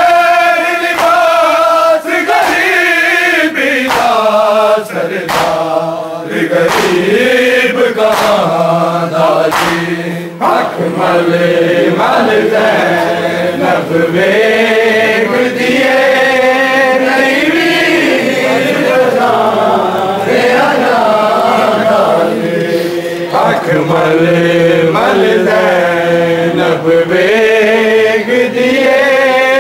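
A man's voice chanting a Punjabi noha, a Shia lament, in long wavering melodic phrases with short breaths between them, without accompaniment.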